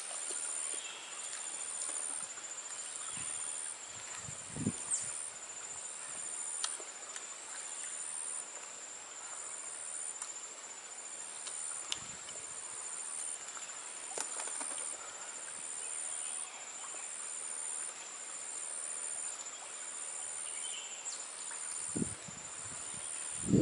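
Insects chirring in the forest: a steady high-pitched trill, with a second high chorus that swells and breaks off about once a second.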